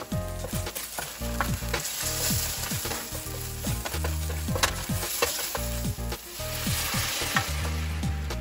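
Chili bean sauce and garlic sizzling in hot oil in a stainless steel skillet while a wooden spatula stirs and scrapes, with a steady sizzle and scattered pops and clicks.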